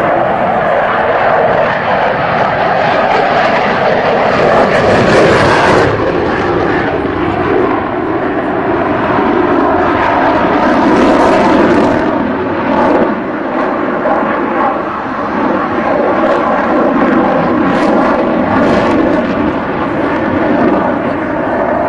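Jet noise of a Sukhoi Su-37 fighter's twin turbofan engines as it flies overhead: a loud, steady rush with faint humming tones in it, growing harsher for a moment about five seconds in.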